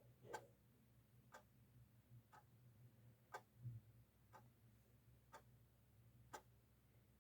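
A clock ticking faintly and evenly, about one tick a second, over a faint low hum.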